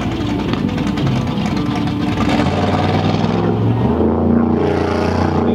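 Big-block V8 of a mud-bogging Ford Bronco running hard at high revs as it churns through a deep mud hole, the spinning tyres throwing water. The engine note turns from rough to a steady, held pitch about halfway through.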